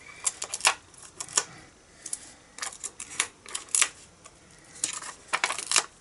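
Irregular short clicks, taps and crinkles of Stampin' Dimensionals foam adhesive dots being peeled off their backing sheet and pressed onto a cardstock tag.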